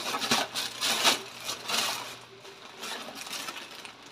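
Thin plastic shopping bags rustling and crinkling as they are handled, louder for the first couple of seconds and then quieter.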